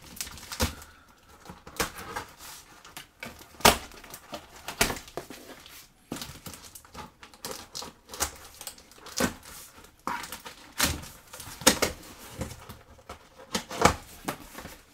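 Clear plastic packing tape being pulled and torn off a cardboard shipping box, a string of sharp rips and crackles at irregular intervals, with the cardboard flaps rustling as they come free.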